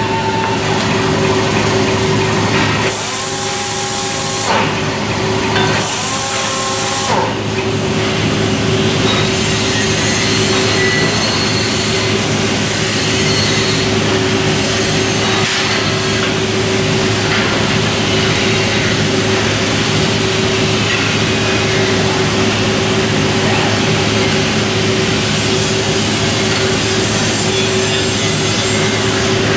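Robotic arc welder welding chain: a steady, dense crackling hiss with a constant hum, broken by two short pauses in the first several seconds.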